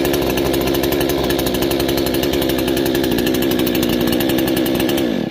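Proyama PCS50 chainsaw, a Zenoah-clone 49.3 cc two-stroke, running steadily at a constant speed. Near the end the engine winds down in pitch and stops.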